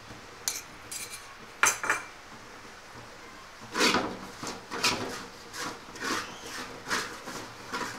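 A flat wooden spatula stirring and scraping fried shallots and ground spices around a metal cooking pot. Two sharp knocks come in the first two seconds. A run of scraping strokes follows from about four seconds in, a few tenths of a second apart.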